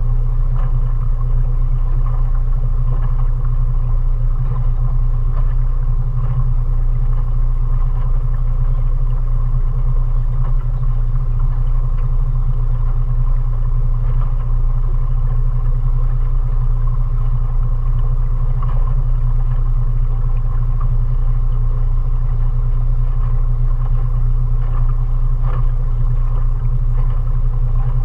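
A 20 hp Mariner outboard motor running steadily under way, a constant low drone that stays at the same pitch and level throughout.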